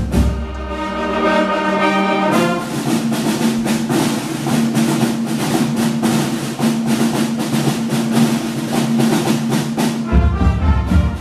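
Concert band of brass, woodwinds and drums playing: a held brass chord, then about two seconds in the snare and bass drums come in with a steady driving beat under a long sustained brass note.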